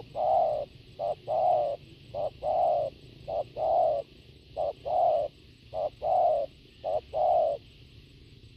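Spotted dove cooing over and over, each coo a short note followed by a longer one, about one pair a second, stopping about seven and a half seconds in.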